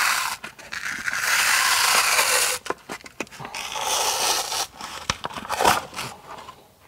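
Polyethylene fleece waterproofing membrane being peeled by hand off cured thinset: several long tearing, scraping pulls with scattered crackles between them.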